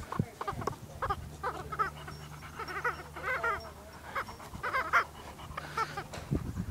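Dog giving a run of short, wavering whines and yips: excited vocalizing during rough play.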